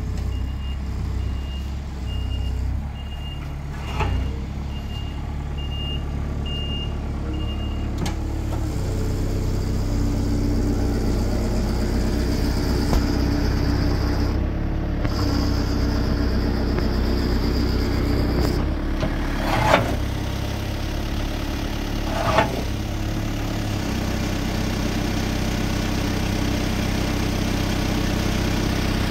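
JCB 8060 midi excavator's engine running steadily, with a high warning alarm beeping at an even pace for the first several seconds. The engine works harder from about eight seconds in, and a few sharp clanks come through, two of them in the second half.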